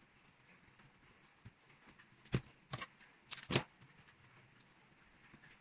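Stiff plastic packing strap of a woven basket being handled: a few sharp clicks and crinkles between about two and three and a half seconds in, as a cut strap end is pushed through the weave and tucked away.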